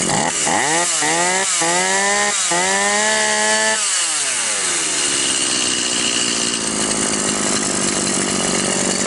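Stihl chainsaw's small two-stroke engine revved three times in quick succession, held briefly at high revs, then winding back down to a steady idle about four seconds in. It picks up cleanly after its non-adjustable carburettor was made to give more fuel to cure a loss of power, and the idle has just been turned down so the chain stays still.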